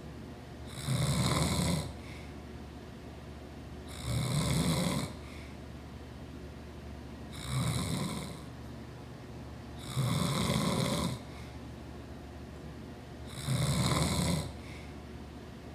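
A sleeping man snoring, five snores in a steady rhythm, each about a second long and about three seconds apart.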